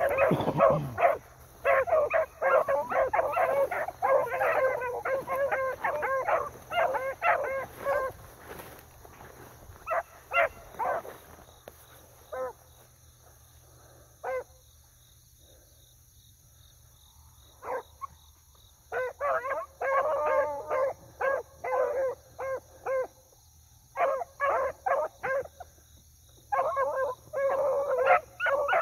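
A pack of beagles baying while running a rabbit's trail. A fast, dense run of barks thins to scattered single barks and falls nearly quiet about halfway through, then the hounds open up again in bursts that build toward the end.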